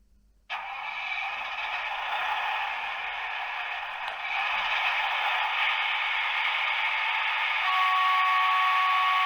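Sound decoder of a Märklin H0 model Henschel DHG 700 diesel shunter playing its diesel engine sound through the locomotive's tiny onboard speaker. It is thin and hissy with no bass, starts about half a second in and steps up a little partway through. Near the end two steady tones sound together for about two seconds.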